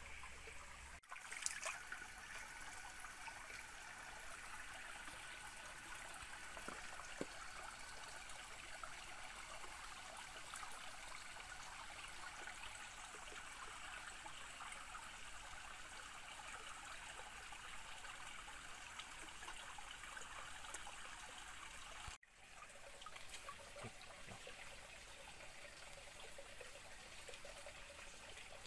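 Shallow forest stream trickling steadily over rocks, with a few brief clicks from handling.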